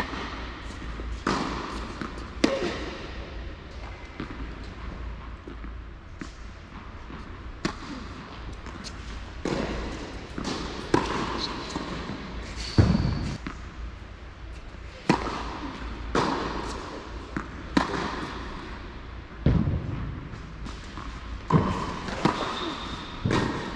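Tennis balls struck by rackets and bouncing on an indoor hard court, a series of irregular sharp pops each followed by echo in the large hall.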